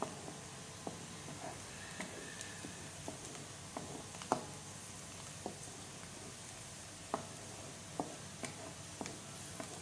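Sliced onions frying in hot oil in a pan, a steady sizzle broken by scattered sharp pops and crackles about once a second, as a wooden spatula stirs them. The onions are still pale, not yet golden.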